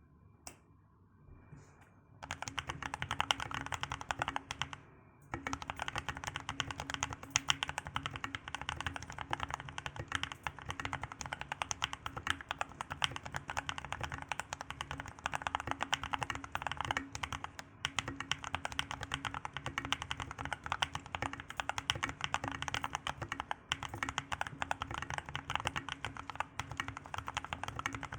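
Fast, continuous typing on a Skyloong SK61 mechanical keyboard with lubed 'Holy Gateron Skies' tactile switches (Outemu Sky upper housing, optical Gateron Brown bottom housing, Halo True stem, 67 g springs), OEM-profile keycaps and foam in the plate and case. A few scattered key taps come first, and the steady typing starts about two seconds in, with a brief break a little after five seconds.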